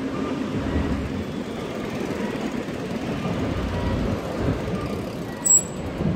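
Road traffic on a city street: a steady rumble of passing vehicles, with a brief sharp high-pitched squeak about five and a half seconds in.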